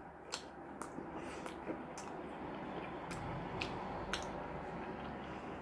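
A person chewing a mouthful of sandwich with the mouth closed, giving faint, scattered wet clicks and smacks.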